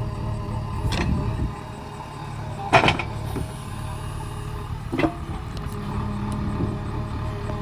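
Heavy diesel vehicle engine running steadily, with three sharp metallic knocks about a second in, near three seconds in (the loudest) and about five seconds in.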